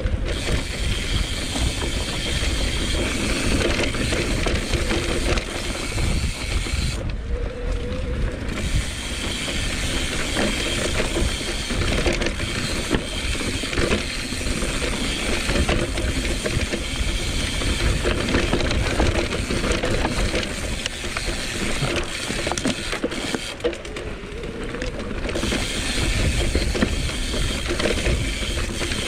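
Mountain bike descending a dirt trail at speed: wind rumbling on the microphone, tyres rolling over dirt, and the bike rattling over bumps, with the rear hub's freewheel ratchet clicking while coasting.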